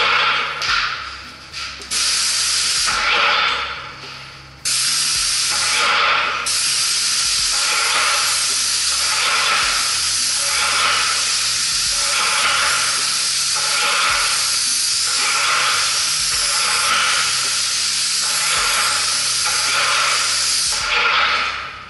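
Airless spray gun of a Dino Power 6555 sprayer spraying onto a wall. It hisses in short bursts as the trigger is worked for the first few seconds, then hisses continuously with a regular pulse about once a second, stopping near the end.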